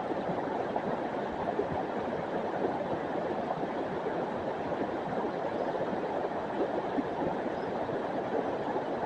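River water flowing below the bridge, a steady rushing sound.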